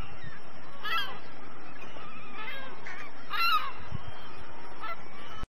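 Waterbirds on the water calling: a handful of short, harsh pitched calls scattered a second or so apart, the loudest about three and a half seconds in, over a steady background hiss. The sound cuts off abruptly near the end.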